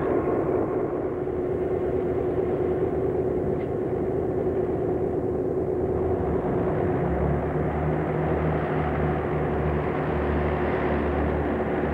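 Diesel train engines running steadily: a constant drone, with a deeper, pulsing engine note joining about seven seconds in, from a Renfe 592 diesel multiple unit and a diesel freight locomotive crossing at a station.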